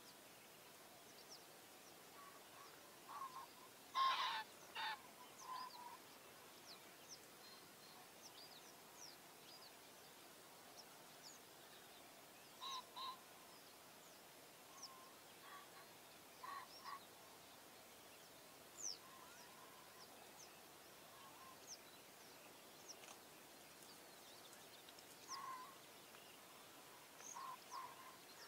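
Birds calling: short pitched calls, mostly in quick pairs, recurring every few seconds and loudest about four seconds in, over scattered faint high chirps and a quiet background.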